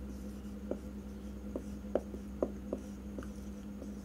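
Dry-erase marker writing on a whiteboard: a series of short, separate squeaks and taps of the tip as letters are drawn. A steady low hum runs underneath.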